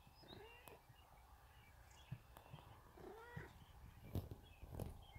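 Domestic tabby cat meowing twice, about three seconds apart, each call rising and falling in pitch. Close knocks and bumps follow near the end.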